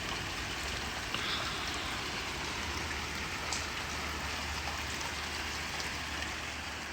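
Steady heavy rain falling and splashing on surfaces, with a few faint drip ticks and a low steady hum underneath.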